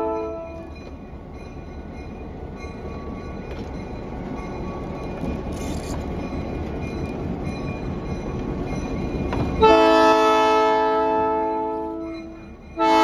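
Diesel locomotive Y&S 18 passing: the end of a chord on its horn, then the rumble of the locomotive and train rolling by, growing gradually louder. About two-thirds through, the horn sounds again, a chord held for a couple of seconds that then fades away.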